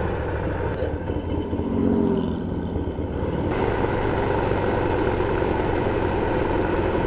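Harley-Davidson Sportster V-twin running under way, a steady low rumble. A brief higher tone sounds about two seconds in.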